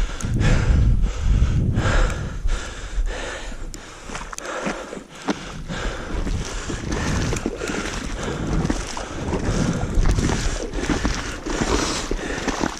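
Wind buffeting the microphone during a snowstorm, with regular crunching footsteps through snow about twice a second.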